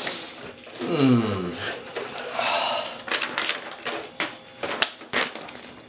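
Cardboard box flaps and packing paper rustling and crinkling as hands pull out the paperwork, with many sharp crackles. A man's short wordless vocal sound with falling pitch, about a second in, is the loudest moment.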